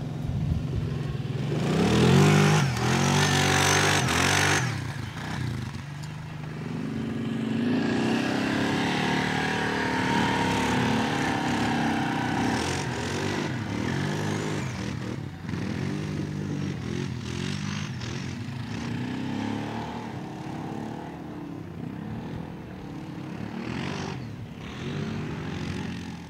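ATV engines running and revving as four-wheelers ride past on a dirt trail, the engine note rising and falling with the throttle. One machine passes close and loud in the first few seconds.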